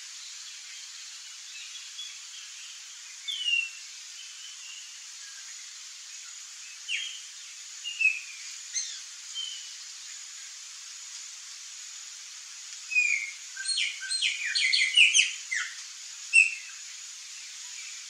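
Birds calling: scattered short, falling chirps and whistles, then a quick run of calls about 13 to 16 seconds in, over a steady background hiss.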